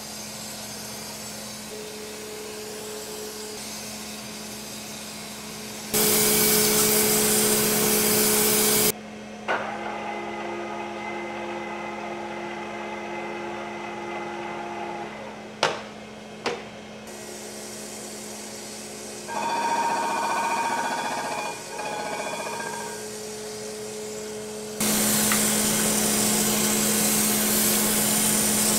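A crankshaft grinder running with a steady hum while its wheel grinds the rod journals of an L10 Cummins crankshaft under coolant. The grinding gets louder in two stretches, about six seconds in and again near the end, with two sharp clicks in between.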